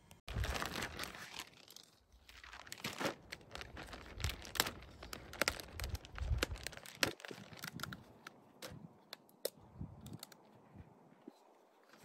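Plastic wrapping being torn open and crinkled around a flat-packed cardboard smoker box kit, then the stiff cardboard pieces slid out and handled, in a dense run of rustles, crackles and sharp clicks that thin out over the last few seconds.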